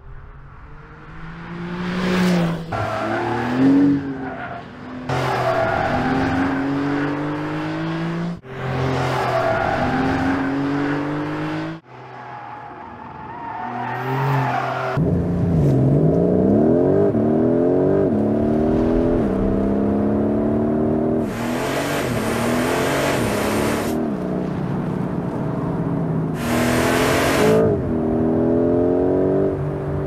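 Porsche 911 Carrera GTS flat-six engine accelerating hard, its revs climbing and dropping back through a series of upshifts, in several spliced clips. Two stretches of loud hiss come in over the engine in the second half.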